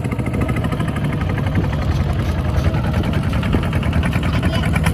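Engine of a small homemade three-wheeled farm tractor with steel cage wheels running steadily as it drives along, with a fast, even firing beat.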